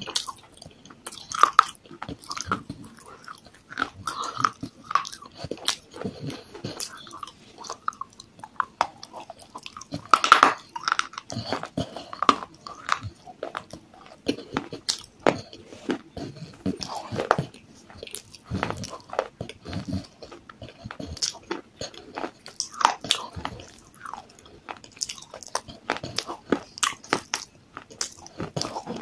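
Biting and crunching of baked clay pot pieces coated in white paste, with wet chewing between the crisp crunches, irregular and continuous throughout.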